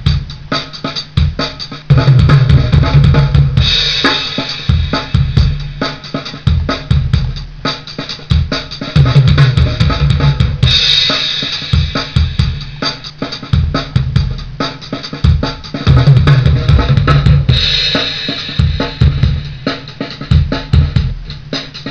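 Drum kit recording played back through a homemade 1612 pentagrid tube compressor, switched back and forth with the direct, uncompressed output: dense kick, snare and tom hits with cymbal crashes about every seven seconds.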